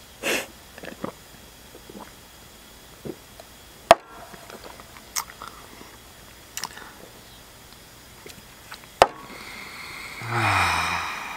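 Two stainless steel cups set down on a wooden table, one sharp knock about four seconds in and another about nine seconds in, among small swallowing and breathing noises of people drinking in one go. Near the end comes a loud, breathy exhale with a low voice.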